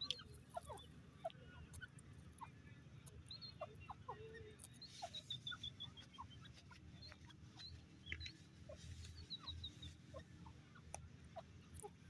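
Grey francolin's soft, faint clucks and short chirps scattered throughout, with a quick descending run of high notes about five seconds in, over a steady low background rumble.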